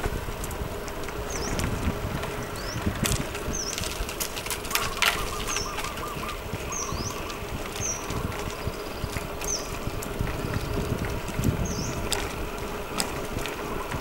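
Riding a mountain bike on a paved street: low wind rumble on the microphone and tyre noise, with scattered light rattles and clicks. A bird calls with short high notes about once a second.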